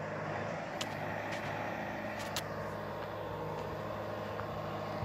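An engine running steadily, a low even drone, with a few short high clicks in the first half.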